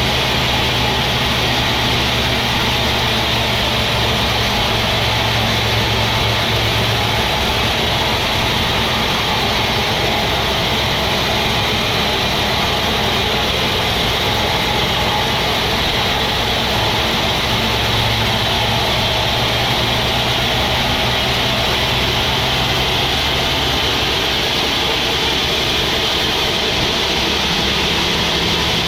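Sawmill machinery running steadily: a constant, loud mechanical noise with a low hum underneath.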